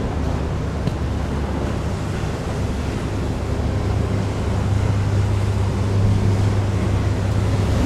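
Sea waves and wind on the microphone over a steady low engine drone from passing vessels; the drone grows louder about halfway through.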